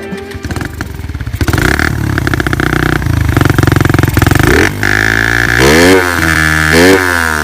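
Suzuki Raider R150's single-cylinder four-stroke engine through a Daeng aftermarket exhaust pipe. It runs loud from about a second and a half in, then is revved in quick blips, the pitch rising and falling about once a second toward the end.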